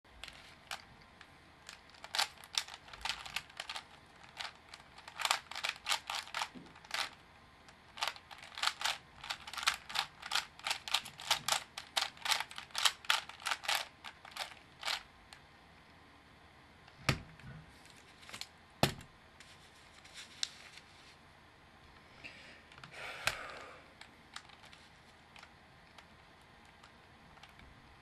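Plastic 3x3 speedcube (a black cube4you DIY kit with Cubesmith tiles) clicking and clacking as it is handled and turned over in the hands, in irregular runs of sharp clicks for about the first half. Two louder knocks follow, then a brief soft rustle.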